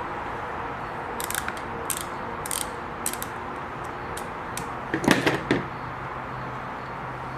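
Screwdriver working a big screw out of a Kenmore 117.592 sewing machine's lamp fixture: a run of small metallic clicks and scrapes, then a louder clatter of metal a little past halfway.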